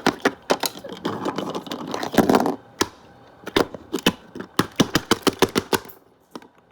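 Irregular clicks and taps of hard plastic Littlest Pet Shop figures and their accessories being handled and knocked on a surface, with a short scuffing noise about a second in.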